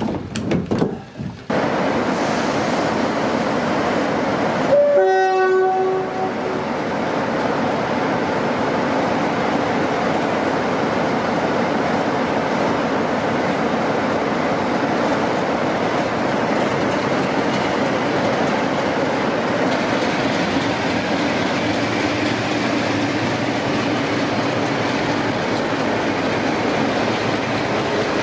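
Train sounding a short two-note warning blast about five seconds in, a brief higher note then a lower one, followed by the steady noise of the train running on the rails.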